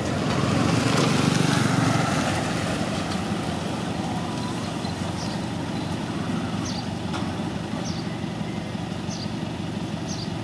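Steady low engine rumble, swelling briefly in the first two seconds, with short high chirps about once a second through the second half.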